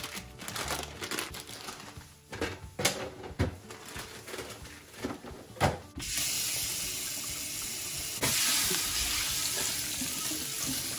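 A few knocks and clatters of containers being handled, then about six seconds in a kitchen faucet is turned on and runs steadily into the sink, getting louder about two seconds later as the stream falls into a frying pan.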